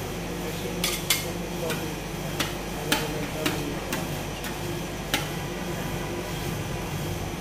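Metal spatula scrapers clinking and scraping on a stainless-steel ice-cream freezer plate as a thin layer of rolled-ice-cream base is spread and smoothed. There are about eight sharp, irregular clinks over a steady low hum.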